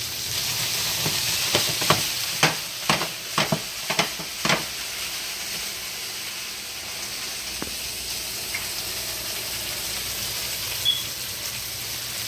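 Chicken breast frying in butter in a cast-iron skillet: a steady sizzle. A quick run of sharp clicks comes between about one and a half and four and a half seconds in.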